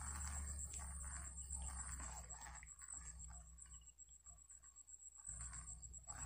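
Insects trilling steadily in marsh grass, a high, finely pulsing drone, over a low rumble.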